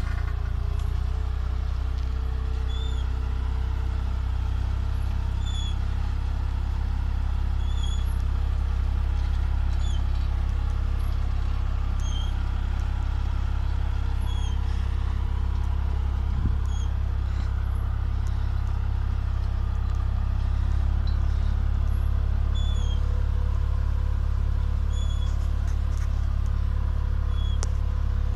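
Tractor engine running steadily under load, pulling a plastic-mulch laying machine that shapes the strawberry bed with a roller, lays drip tape and covers it with plastic film. A short high squeak repeats about every two seconds over the engine drone.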